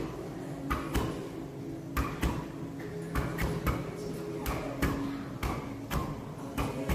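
Boxing gloves punching a tall heavy bag: about a dozen sharp thuds thrown in quick twos and threes, over a faint steady hum.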